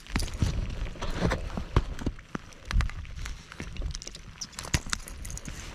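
Handling noise while a bass is unhooked: irregular sharp clicks and knocks of pliers and hands working a crankbait's hooks out of the fish's mouth, over a low rumble of wind on the microphone.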